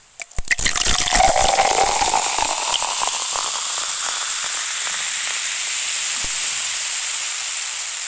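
Cola poured from a bottle into a glass: a splashing pour for the first couple of seconds, then a steady fizzing hiss from the foaming carbonation.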